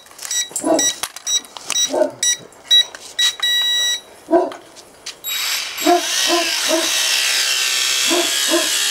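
A run of short electronic beeps, then about five seconds in the toy quadcopter's small brushed motors spin up with a high whine that wavers in pitch. A dog barks several times throughout, in quick runs of three or four barks near the end.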